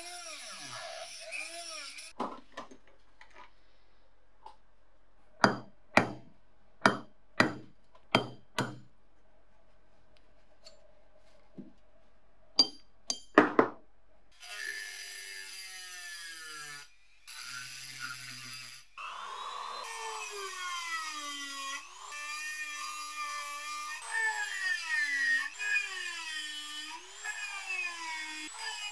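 A handheld rotary tool's cut-off wheel cuts a steel pin, throwing sparks. Then come sharp hammer blows, about seven in quick succession half a second apart and three more a few seconds later. After that a rotary tool with a grinding stone grinds rusty cast iron, its pitch wavering as the load changes.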